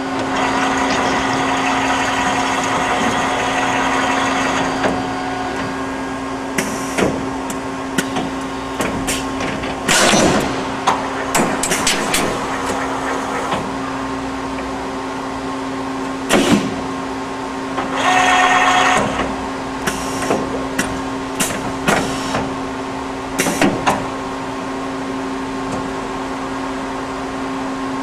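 Automatic bar loader on a CNC lathe feeding stock: a steady machine hum with a whine in the first few seconds, and metal clicks and clanks scattered through as bars are moved and pushed into the loading channel, with a longer rattle about eighteen seconds in.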